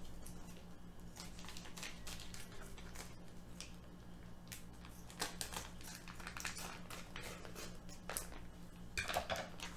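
Kitchen scissors snipping and plastic wrapping crinkling as a packaged pork loin is cut open: scattered short snips and rustles, more of them towards the end, over a faint steady low hum.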